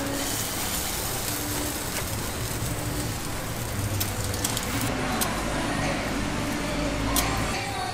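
Steady street traffic noise, with a low rumble swelling in the second half, and a few light metallic clicks from tongs and wire hooks as chicken drumsticks are hung inside a clay jar oven.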